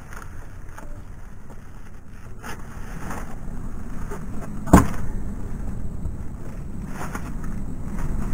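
Wind rumbling on the microphone while plastic garbage bags rustle and crinkle as they are lifted and handled, with one sharp knock about halfway through.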